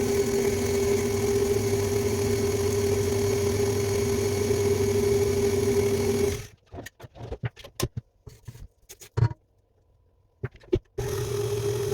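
Electric mixer motor running steadily at one speed, stopping about six and a half seconds in. Scattered clicks and knocks follow, then the mixer starts up again near the end.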